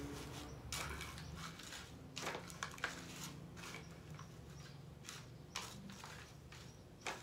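Light, scattered clicks and rustles of gritty potting substrate shifting in a plastic bowl as it is handled, over a faint steady low hum.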